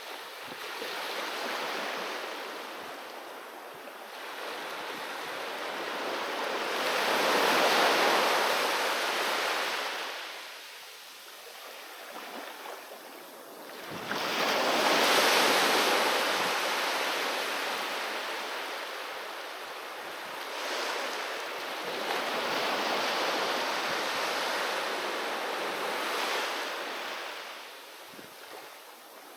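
Sea waves breaking on a beach and washing up the shore, each surge swelling and fading over several seconds. The two biggest break about eight and fifteen seconds in, followed by several smaller ones.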